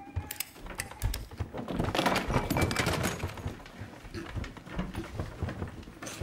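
A rapid, irregular run of knocks, taps and rattles against a table as a man slumps forward and thrashes on it. The knocks are thickest in the first three seconds, thin out after, and end with one louder knock.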